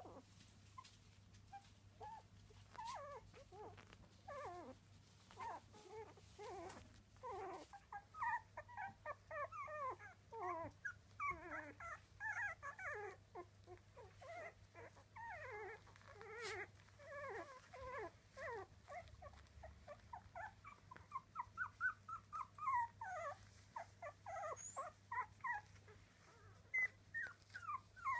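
A litter of three-week-old miniature dachshund puppies crying, with many short cries that fall in pitch. They are sparse at first, then crowd together and overlap from about a third of the way in.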